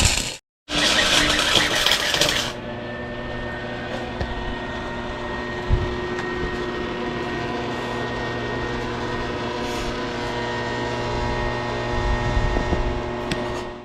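Ditch Witch JT20 directional drill's diesel engine running steadily at a constant pitch. It starts with a couple of seconds of louder, rougher noise, then settles into an even hum.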